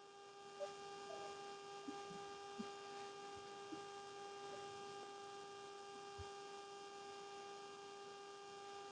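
Faint steady electrical hum with a few soft clicks: the room tone of the recording. It cuts in about half a second in, after a moment of total silence.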